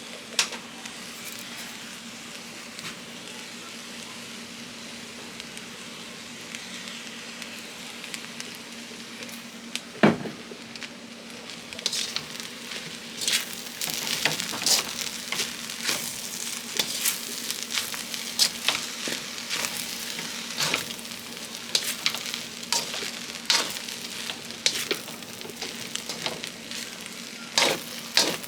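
Chicken fried rice sizzling in a pan, with one sharp knock about ten seconds in. From about twelve seconds on, a utensil scrapes and clacks against the pan as the rice is stirred.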